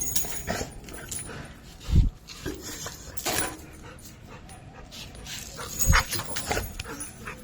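A Rottweiler making small dog sounds, with two short low thuds about two and six seconds in.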